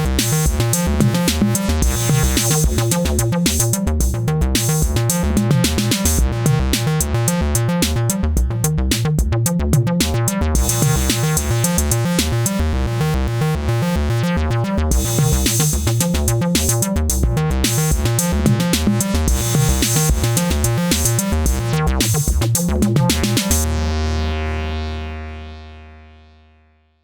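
Electronic music demo: a synthesizer bass line over a drum machine beat. About 23 seconds in the beat stops on one held low bass note that fades out over the last few seconds.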